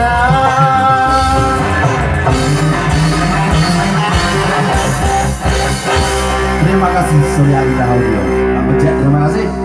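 Live band playing an instrumental passage: an electric guitar lead with held, bending notes over bass guitar and drums.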